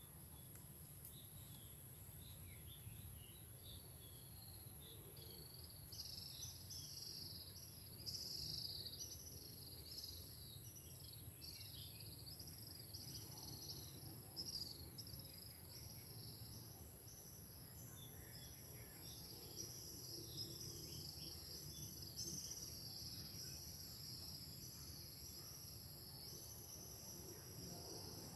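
Faint outdoor ambience: insects chirping high and busily, picking up a few seconds in, over a low steady rumble.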